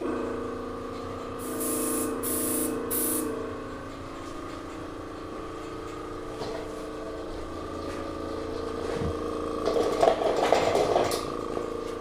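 A small airbrush compressor starts up with a steady hum, and the airbrush gives three short hissing sprays about two seconds in. A louder rough noise comes about ten seconds in.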